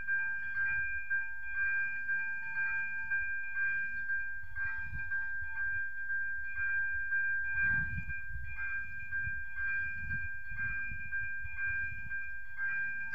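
Railway level-crossing warning bell ringing in even, repeated strikes, about one and a half a second, warning that a train is approaching. Low wind rumble on the microphone underneath.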